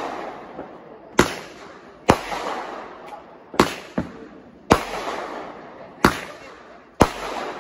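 Aerial fireworks bursting overhead: six sharp bangs about a second or a second and a half apart, each trailing off slowly.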